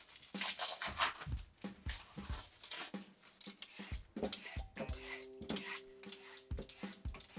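Handheld vegetable peeler scraping the skin off a Korean white radish (mu) in quick, uneven strokes.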